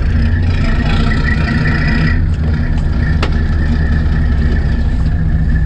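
A fishing boat's engine running steadily at idle, a low drone, with one sharp click about three seconds in.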